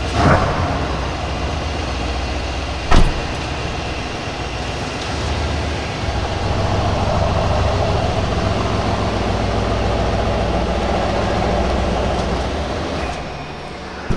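Mercedes-AMG C63 S Coupe's twin-turbo 4.0-litre V8 idling steadily just after a start-up in Sport Plus mode. A car door shuts with a sharp knock about three seconds in. The idle grows louder from about six seconds and eases off near the end.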